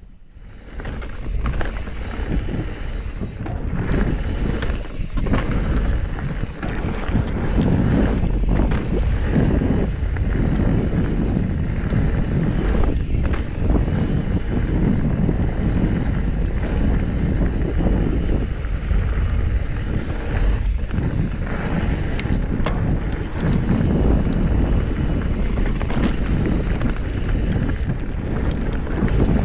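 Wind rushing over an action camera's microphone on a moving mountain bike, mixed with the rumble of tyres and the rattle of the bike on a dirt and rock trail.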